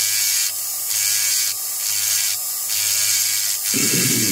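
High-speed rotary carving tool with a small cone-shaped bit grinding into wet fire agate at about 6,000–7,000 RPM, a steady high whine and hiss. The grinding dips briefly about once a second.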